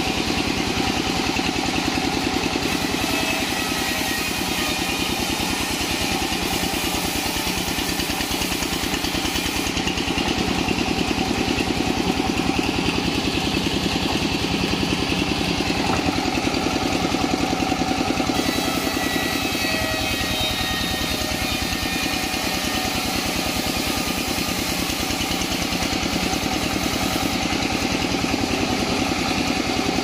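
A sawmill's vertical band saw running steadily while planks of waru wood are fed through the blade. Its drive makes a constant engine-like drone with a fast, even pulse.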